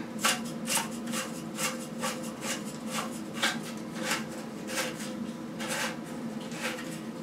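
Plastic lock nut of a Fluidmaster flush valve being spun by hand onto the valve's threaded shank under a toilet tank: short rasping scrapes of plastic thread on thread, about two a second, one per turn of the hand.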